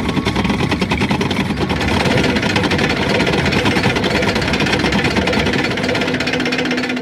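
Cartoon tank engine sound effect: a heavy engine running with a fast, rough clatter. A steady low hum joins near the end.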